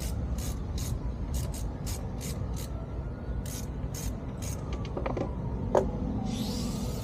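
Metal hand tools working on a motorcycle brake caliper: quick even clicking, about four a second, then a few clinks and one sharp metallic ping near the end, over a steady low rumble. A hiss starts just before the end.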